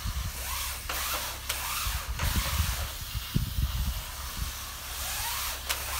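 Screen-cleaning machine running, its water-fed jets hissing and its brushes scrubbing a window screen, over a steady low hum. A few sharp knocks and low thumps come as the screen is worked through.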